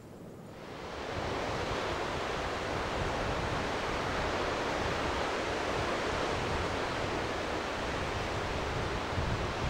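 Steady wash of sea surf breaking on a rocky shore, mixed with wind, fading in about a second in and holding even after that.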